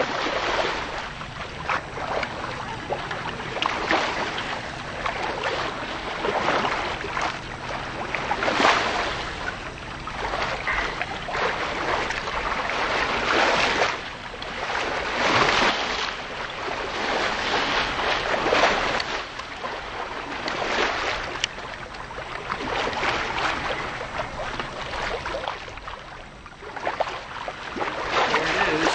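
Water rushing and splashing along the hull of a powerboat under way through choppy water, swelling in surges every second or two, over a low, steady engine drone.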